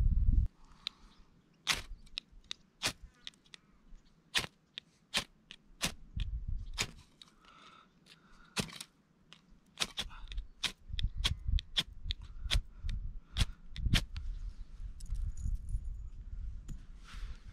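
Dry firewood cracking sharply and irregularly, about one crack every second, over a low rumble.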